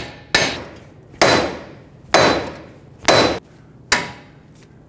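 Steel hammer striking a Honda Pilot's front steering knuckle, metal on metal: five blows about a second apart, each ringing briefly. The hammering is to shock the tie rod end's stud loose from the knuckle.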